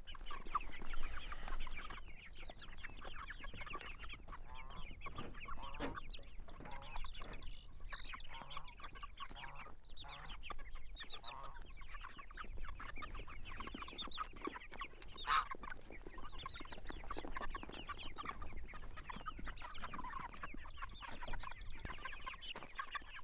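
A flock of Cornish Cross meat chickens clucking continuously, many short overlapping calls, with a single sharp knock a little past midway.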